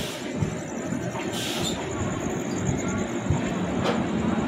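Mewar Express passenger train running on the track: steady rumble of wheels on rail, with a brief hiss about a second and a half in and a sharp click near the end.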